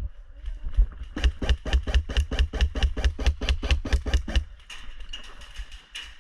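Quick, even footfalls of a player running, about five to six a second for some three seconds, each landing as a heavy thud.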